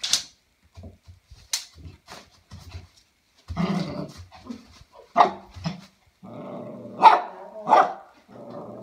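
Small shih tzu dog barking and growling at an unfamiliar tape measure, a wary reaction: a few sharp barks from about halfway through, with growling between them near the end. Two sharp clicks come in the first two seconds.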